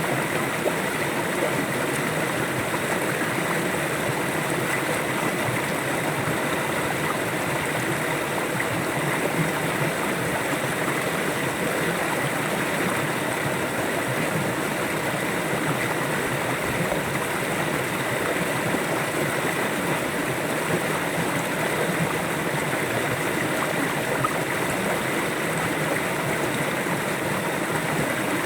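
River or stream water flowing over rocks, a steady, even rushing and gurgling.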